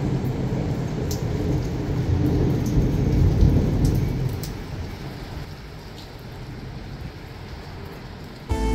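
Thunderstorm: rain falling with a long rumble of thunder that dies away after about four seconds, leaving the steady rain with scattered drop ticks.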